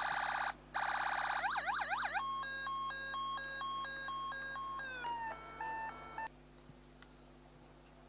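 Velleman MK113 siren sound generator kit playing electronic siren sounds through its small speaker as its settings are switched: a steady tone, then a fast rising-and-falling wail, then an alternating two-tone hi-lo beep, then a second two-tone pattern with falling glides. It cuts off suddenly about six seconds in.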